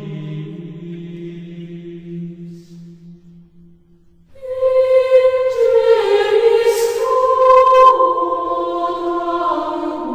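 Slow vocal chant: a low held note fades away over the first four seconds, then higher voices come in loudly about four seconds in, holding long notes that step down in pitch.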